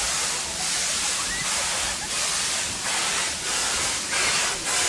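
Steam locomotive Drakensberg at work, heard from its train: a steady hiss that pulses with slow, regular exhaust beats, about one and a half a second.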